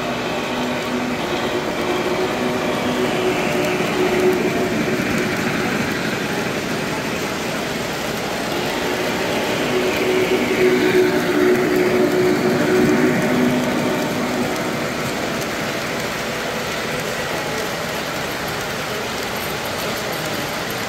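Three-rail O-gauge model trains running on the layout: a steady rolling rumble with a low hum. It swells as trains pass about three seconds in and again from about nine to fourteen seconds.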